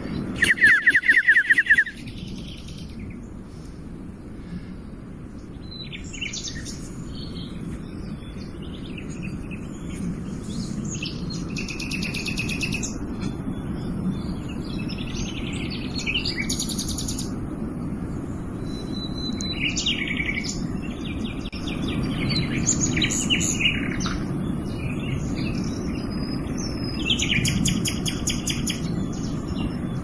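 Several wild birds singing and calling, with many short chirps and trills overlapping. Near the start a loud, fast pulsing trill stands out as the loudest sound. A steady low rumble runs underneath.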